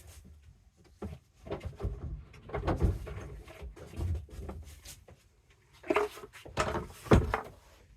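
A wooden tool box and the plane inside it being handled: a run of knocks and scrapes, with two louder thumps about six and seven seconds in.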